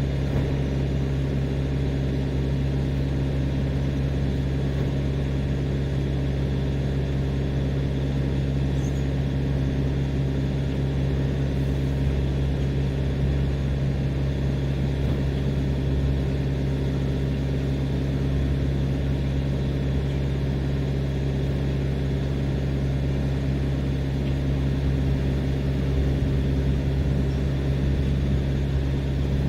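Refrigerated tractor-trailer's engine idling, a steady low hum that does not change.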